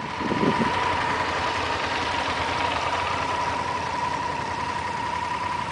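Motorcycle engine running steadily, with a steady high whine over it and a short low warble just after the start.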